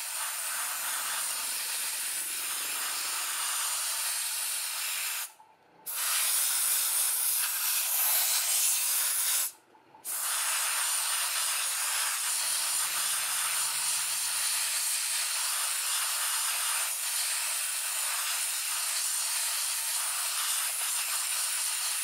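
Can of compressed air hissing through its straw nozzle into a laptop's cooling vent, blowing out dust. It sprays in three spurts: one of about five seconds, a shorter one of about four seconds, then a long steady spray. Each spurt cuts off suddenly.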